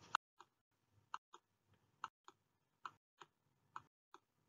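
Faint, light clicks at an even pace, about two a second and often in close pairs, as the stop-action slides are clicked through one after another.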